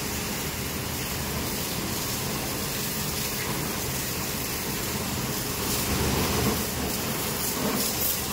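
Water gushing or spraying in a steady rush, a little louder about six seconds in.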